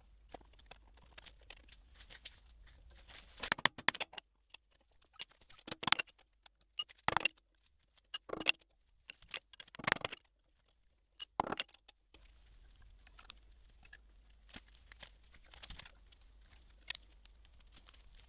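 Steel toe clamps and an Allen key being handled and tightened on a milling machine's steel table: scattered sharp metal clicks, clinks and knocks, a second or more apart, with quiet stretches between.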